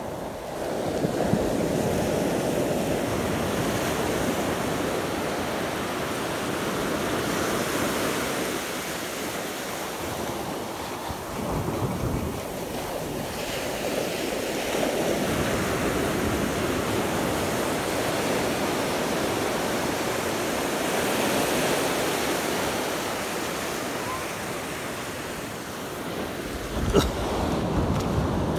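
Ocean surf breaking and washing up a sandy beach, swelling and easing every few seconds, with wind buffeting the microphone. A short sharp knock sounds near the end.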